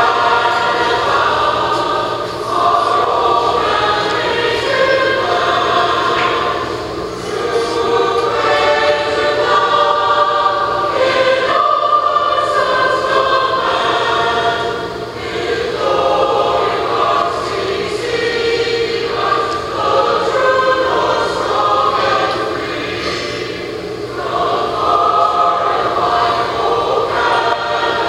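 A solo singer performs a national anthem over an ice-hockey arena's sound system, in slow phrases of long held notes.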